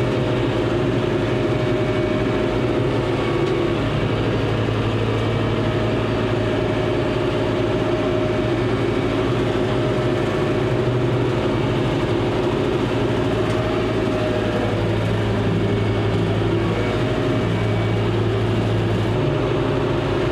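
John Deere 5085M tractor's diesel engine running steadily while it mows trail with a brush hog rotary cutter behind it.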